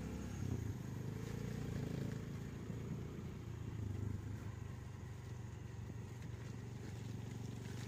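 Motor vehicle engine running steadily while driving along a rough dirt track, with road and tyre noise.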